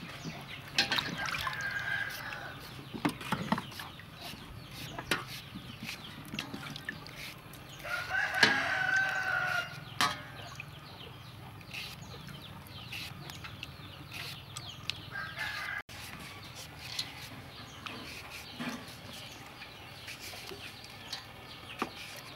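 A knife slicing green banana over a basin of water, with small clicks, drips and splashes. A rooster crows, loudest once about eight seconds in, with fainter crowing near the start.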